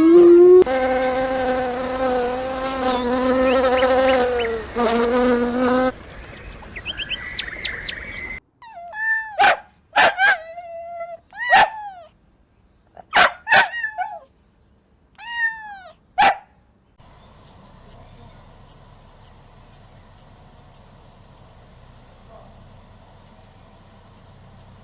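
A run of different animal calls: first a long steady pitched call, then about a dozen short calls that each sweep sharply downward in pitch, then high insect-like chirping at about two chirps a second, typical of a cricket.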